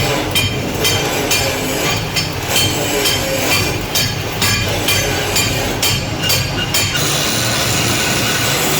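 Steel ringing under repeated hammer knocks, about two or three a second, typical of chipping slag off a stick weld bead. About seven seconds in, the knocking stops and a steady hiss takes over, with a constant low hum underneath throughout.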